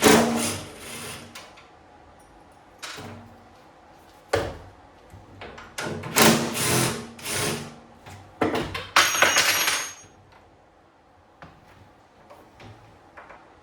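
Hand tools and metal parts clattering, knocking and rattling in a string of separate bursts as the fuel tank of a small generator is unbolted. Near the end comes a brief metallic clink that rings.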